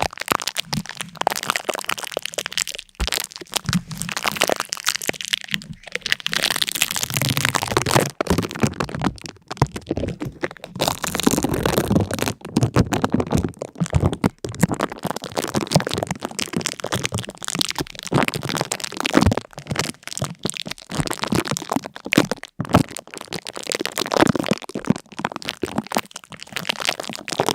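Continuous dense crackling and crunching: a stream of many small sharp cracks packed closely together, swelling and easing in loudness.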